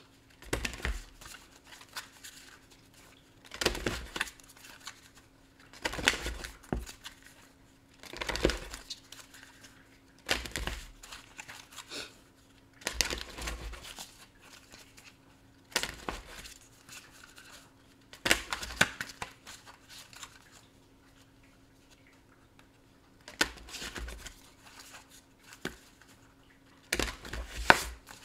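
A deck of tarot cards being shuffled by hand: about ten short papery bursts, one every two to three seconds, with a longer pause about two-thirds of the way through.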